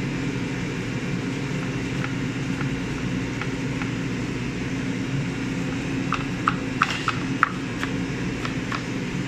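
Knife chopping onion on a plastic cutting board: a few light taps, then a run of sharp knife strikes from about six seconds in. A steady low machine hum runs underneath.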